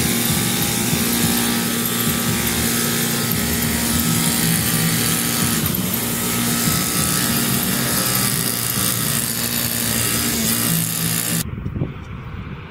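Small gas engine of lawn-care power equipment running steadily. It cuts off abruptly about eleven seconds in, leaving much quieter outdoor sound.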